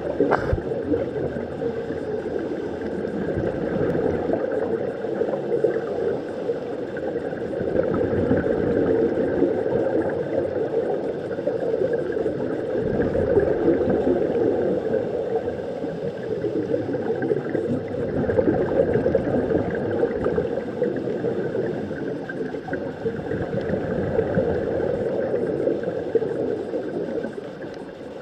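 Muffled underwater rushing recorded through a camera's waterproof housing, with scuba regulator bubbles gurgling in swells every four to five seconds.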